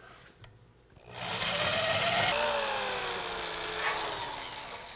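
Heavy corded drill starting up about a second in and boring a half-inch twist bit through a heavy-gauge steel bumper. Its motor whine slowly drops in pitch toward the end.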